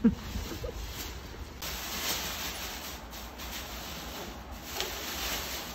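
A thin clear plastic bag rustling and crinkling as it is pulled off a chair, swelling twice. A short pair of thumps at the very start.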